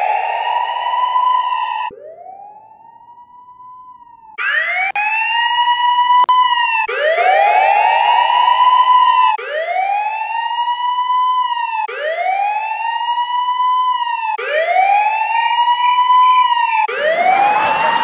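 Police car siren wail played again and again as edited copies, each a rising sweep that levels off and then cuts off, about every two and a half seconds. Each copy has a different effect: first echoing as in a small tiled room, then a quieter copy, then copies with a smeared echo. Toward the end a fast ticking sits high above one copy, and a noisy hiss lies under the last.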